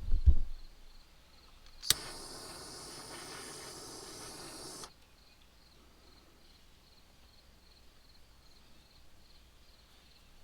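A low thump at the very start, then about two seconds in a sharp click as a small handheld torch is lit, followed by the torch's steady hiss for about three seconds, which cuts off suddenly.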